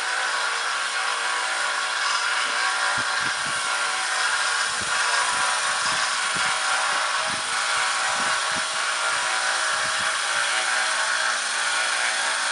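Small electric belt grinder running steadily with a sword's edge held against its 800-grit belt: a continuous whirring grind over the motor's hum, at the fine polishing stage of sharpening.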